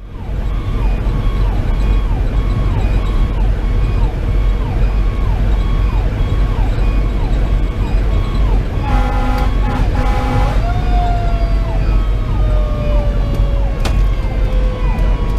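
Fire engine running with lights and sirens, heard from inside the cab: an electronic siren sweeps fast and repeatedly over the steady run of the Detroit Series 60 diesel and the road noise. About nine seconds in come two short horn blasts. Then the Federal Q2B mechanical siren winds up and slowly falls in pitch.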